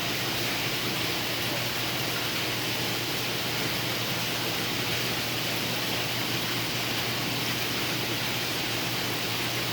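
Steady rushing hiss of water circulation in saltwater aquarium systems, with a low steady hum underneath.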